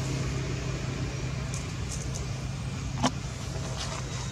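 Steady low engine hum, with one sharp click about three seconds in and a few faint high ticks before it.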